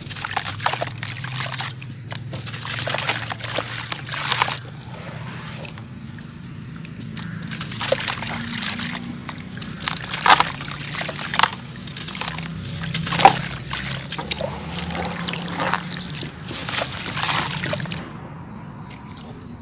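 Charcoal-sand blocks crumbling apart in water: irregular sloshing, trickling and crackling as pieces break off and drop in, with a few sharper plops about ten, eleven and thirteen seconds in.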